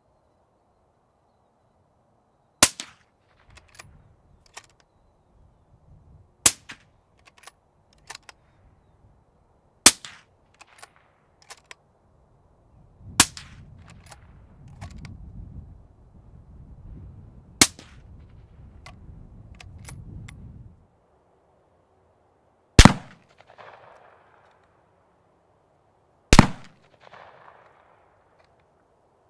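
Five suppressed .308 Winchester rifle shots from a bolt-action Remington 700 fitted with an AB Suppressor Raptor 7.62, each a sharp crack about four seconds apart, with clicks of the bolt being worked between them. About 23 seconds in come two louder shots about three and a half seconds apart: the same rifle fired unsuppressed.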